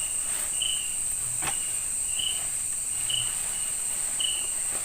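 Night insect chorus: a steady high-pitched cricket trill, with a shorter chirp repeating about once a second and a faint tap about a second and a half in.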